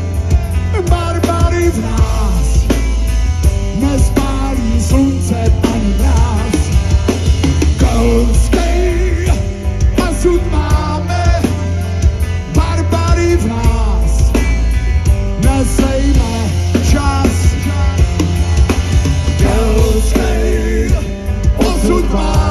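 Live rock band playing a song: a male singer over electric guitars and a drum kit, with heavy bass, heard from the audience.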